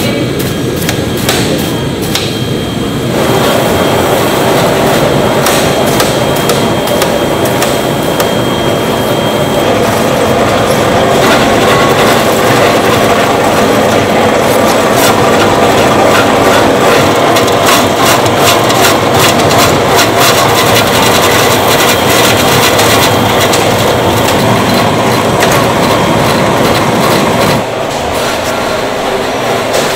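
A vegetable cutting machine running with a loud, steady clatter of knocks as leaves are fed into its chute. The noise grows about three seconds in and drops suddenly shortly before the end.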